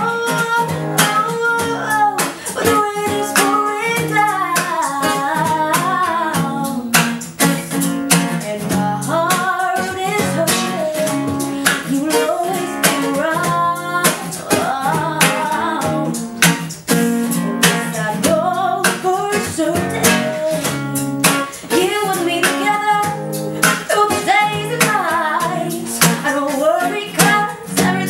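Acoustic duo music: an acoustic guitar strummed steadily under a wavering lead melody line with no words.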